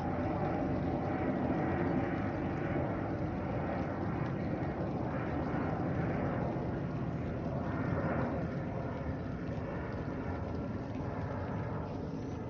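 Airplane passing overhead, a steady broad rumble that slowly fades over the last few seconds.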